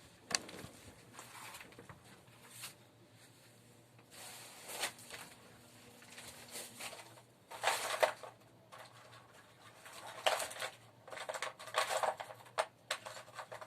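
Intermittent rustling and small clicks and clinks of hands rummaging through nails.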